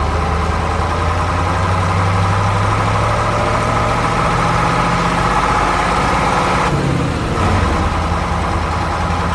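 A small motor running steadily, with a brief dip in its sound about seven seconds in.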